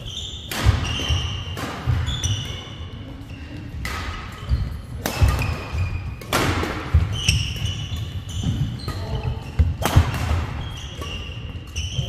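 Badminton doubles rally: sharp cracks of rackets striking the shuttlecock about once a second, with short squeaks of court shoes and thuds of feet on the wooden floor.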